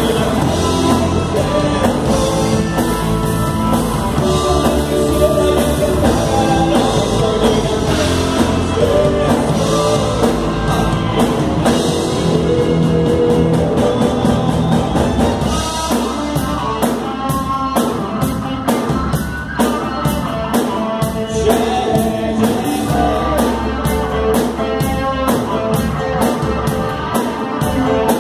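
Live rock band playing: electric guitars over a drum kit keeping a steady beat, with the drum hits standing out more sharply about halfway through.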